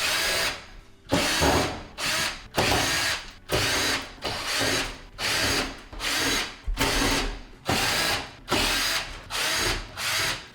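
Power drill with a Phillips bit running in short bursts, about one a second, backing out the screws on top of a microwave's outer wrap.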